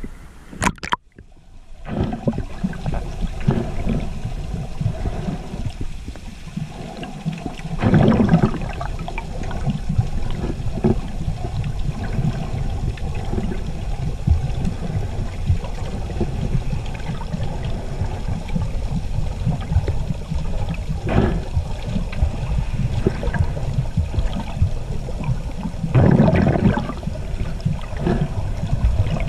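Water sloshing and churning around an underwater camera held by a swimming snorkeler, heard muffled from below the surface. A brief splash about a second in as the camera goes under, and stronger surges of water around eight seconds in and again near the end.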